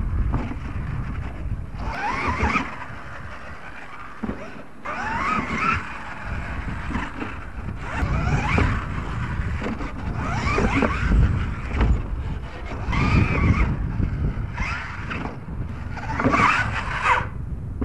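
Radio-controlled monster truck's motor whining up and down with the throttle in short bursts every two to three seconds, over a steady low rumble.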